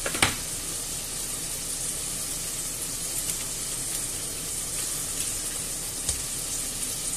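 Chopped onion, red pepper and garlic sizzling steadily in olive oil in a stainless steel pot on medium-high heat. There is a brief click about a quarter second in.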